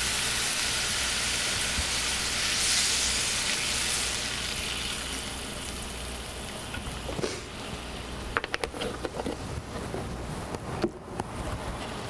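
Sauce of shallots, garlic and wine sizzling in a hot skillet. Cream is poured in: the sizzle swells about three seconds in, then settles to a quieter simmer with a few light clicks.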